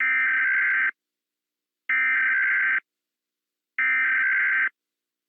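Emergency Alert System SAME header data tones: three identical bursts of rapidly alternating electronic tones, each just under a second long with about a second's gap between them, signalling the start of an emergency alert.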